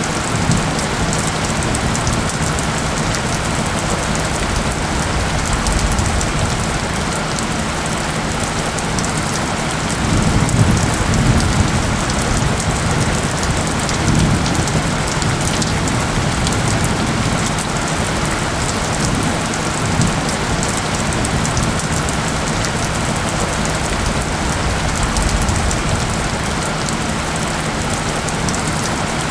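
Steady heavy rain falling on surfaces, with a swell of low rumbling like distant thunder about ten seconds in.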